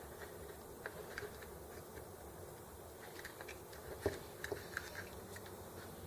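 Faint scattered clicks and taps of small parts and wiring being handled and fitted by hand. The sharpest click comes about four seconds in, followed by a few lighter ones.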